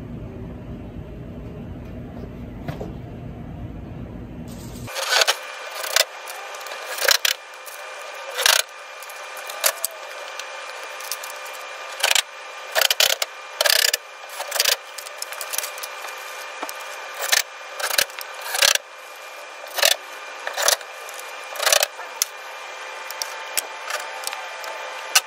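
Tool work fastening a concession window frame into a trailer's metal wall. A steady low rumble gives way about five seconds in to a run of short, sharp, irregular clattering bursts, roughly one a second.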